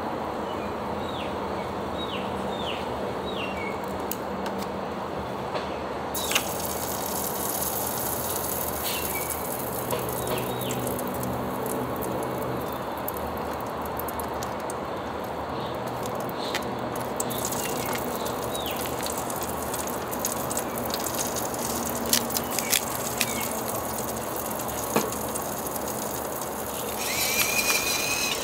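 Pork belly sizzling steadily on the aluminium pan of a disposable charcoal BBQ grill, with metal tongs clicking against the pan a few times. Near the end a pepper grinder grinds over the meat.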